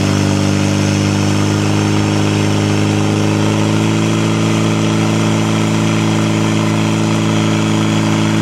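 Portable fire pump engine held at high revs, pumping water through the attack hoses. It climbs quickly at the very start, then holds a steady, loud pitch.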